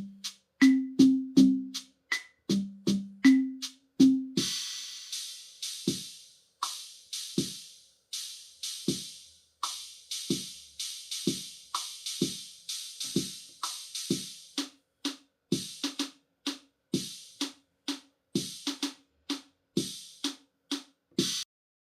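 Suzuki Omnichord OM-108's built-in rhythm patterns playing electronic drum-machine beats. At first it is mostly low pitched drum hits; about four seconds in, a hissing cymbal-like sound joins each beat. The beat stops just before the end.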